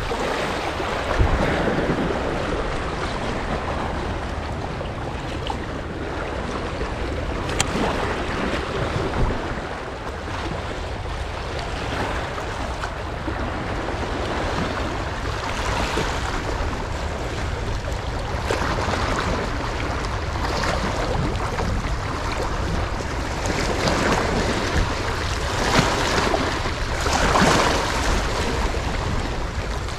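Seawater washing and splashing in irregular surges every few seconds, with wind buffeting the microphone as a steady low rumble.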